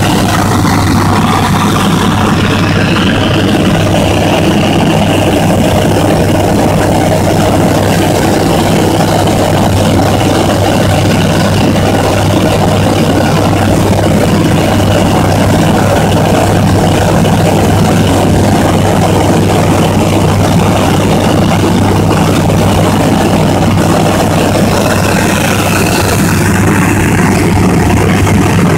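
Bristell light aircraft's engine and propeller running steadily in level flight, heard from inside the cockpit as a constant drone with rushing airflow.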